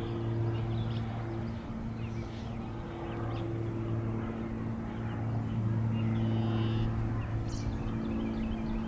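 Steady low engine hum, with small birds chirping over it.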